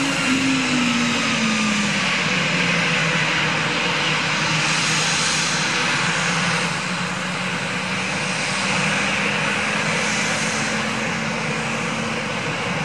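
Jet noise from an Airbus A340-300's four CFM56 turbofan engines, a steady rush with a whine that falls in pitch over the first couple of seconds and then holds steady.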